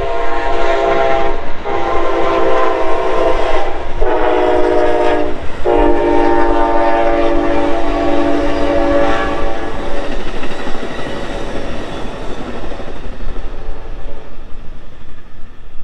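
Amtrak passenger train's air horn sounding the grade-crossing signal as the train passes: two long blasts, a short one, then a long one held several seconds that fades away. The noise of the train running by on the rails lies underneath.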